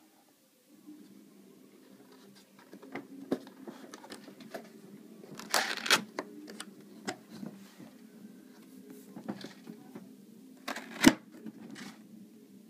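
Handling noises from unboxing a plastic-and-metal airsoft carbine: scattered clicks, knocks and rustling, with a louder clatter about six seconds in and one sharp knock near the end, over a steady low hum.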